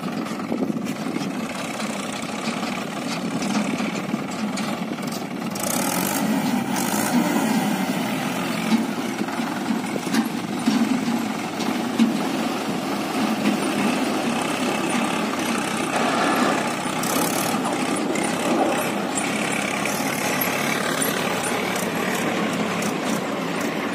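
Mahindra 575 DI tractor's four-cylinder diesel engine running steadily as the tractor pulls a tipper trolley with its bed raised, dumping a load of soil.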